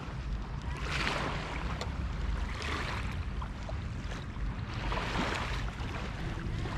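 Small waves washing onto a sandy shore, a soft hissing swell about every two seconds, over a steady low rumble of wind on the microphone.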